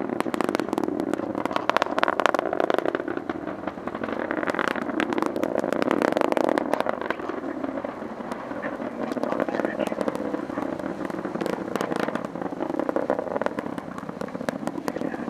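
Atlas V 401 rocket's RD-180 first-stage engine during ascent, a continuous crackling rumble with sharp crackles and pops running through it.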